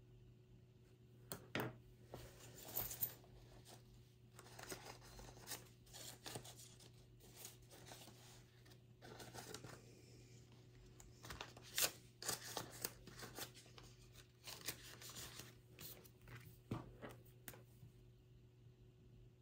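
Faint rustling and clicking of paper and plastic being handled, in many short bursts, the loudest about twelve seconds in.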